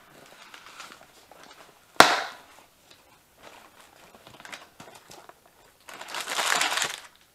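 A cardboard shipping box being opened by hand: a sharp knock about two seconds in, light rustling of the flaps, then packing paper crinkling for about a second near the end.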